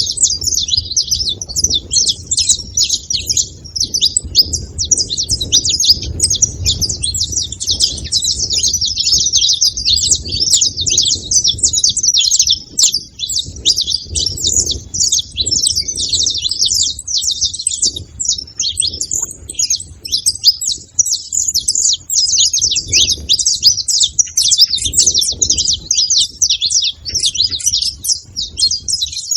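Saffron finch chirping and singing without pause, a rapid, dense run of high notes.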